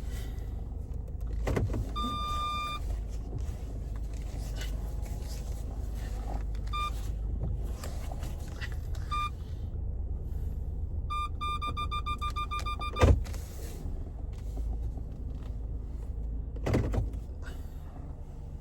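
Low steady rumble inside a car, with a electronic chime beeping: single beeps a few times, then a fast run of beeps ending in a sharp knock, and another thump near the end.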